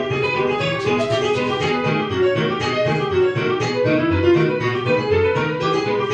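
Piano music: a melody over low bass notes, played at a steady level.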